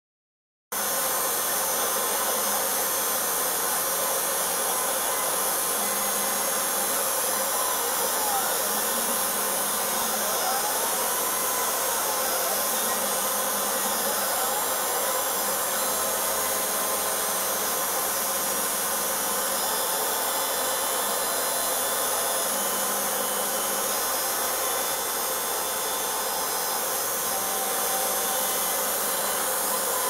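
Desktop CNC engraving machine running: its small DC spindle motor whirs steadily at high speed. Now and then the axis stepper motors add a whine that rises and falls in pitch as the gantry speeds up and slows down.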